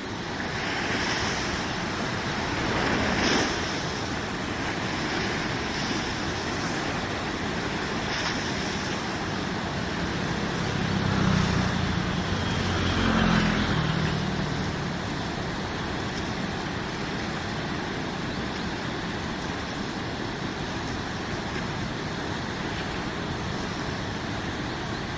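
Water rushing steadily in a large irrigation canal, with a low hum that swells and fades about halfway through.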